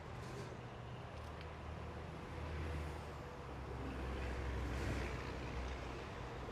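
Road traffic: a steady low rumble of vehicle engines and tyre noise, swelling louder as vehicles pass about two and a half seconds in and again around four to five seconds.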